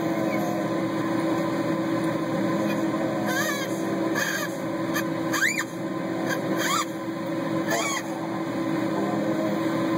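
Dog whining: about five short, high whimpers that rise and fall in pitch, a second or so apart, over a steady low hum. The dog is whining for attention, asking to play.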